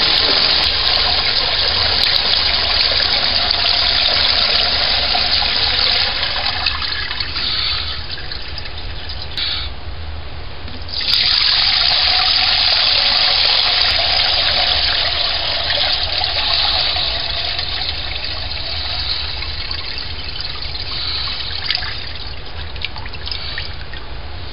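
Liquid corn mash pouring in a steady stream from a pot into a cloth-lined strainer over a bucket, splashing as it goes, during a final filtration of the mash. The pour falters briefly about ten seconds in, comes back as strong as before, and tapers off toward the end.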